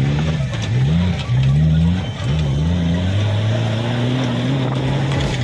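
Off-road 4x4's engine revving in quick rises and falls, about once a second, then held at a steady speed from about halfway through.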